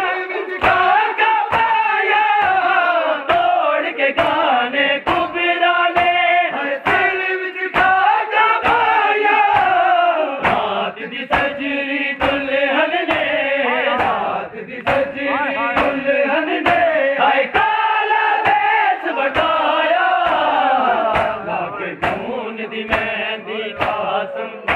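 Men chanting a noha, a Muharram lament, over a steady beat of open hands striking bare chests (matam), a little faster than once a second.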